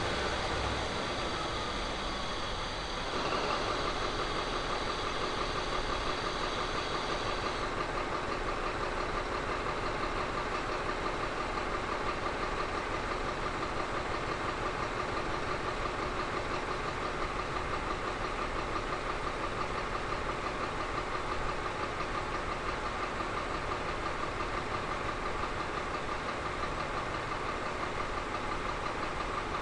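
Caterpillar 3508B V8 twin-turbo diesel running steadily on an engine dynamometer. A high whine heard over it fades out about seven seconds in.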